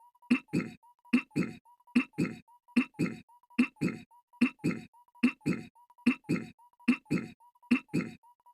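Goofy's cartoon voice clearing his throat, a short two-part throat-clear looped over and over in an even rhythm, about one every 0.8 seconds.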